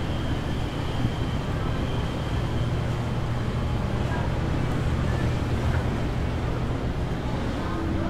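City street ambience: a steady low rumble of traffic, with a thin high whine that fades out about halfway through.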